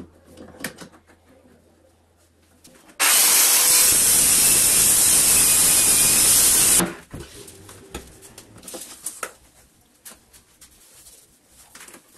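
Dewalt circular saw cutting through a laminated 17 mm MDF board, a loud steady cut that starts abruptly about three seconds in and stops about four seconds later. Scattered light knocks and clicks of tool handling come before and after it.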